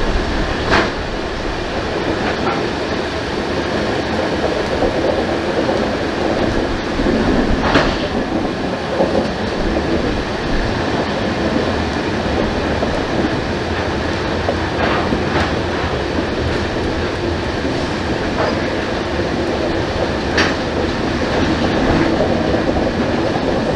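Loaded open hopper wagons of a freight train rolling past close by: a steady rumble of steel wheels on the rails, with a few sharp clicks from the running gear.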